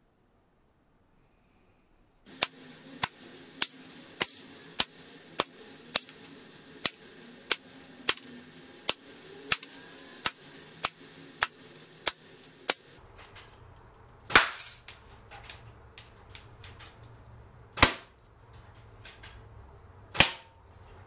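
Spring-powered bolt-action airsoft rifle, a Snow Wolf replica of the Mauser Kar98k, shooting 6 mm BBs at a drinks can target. After about two seconds of near silence comes a quick, even run of sharp cracks, a little under two a second, then three louder single shots about three seconds apart with faint clicks between them.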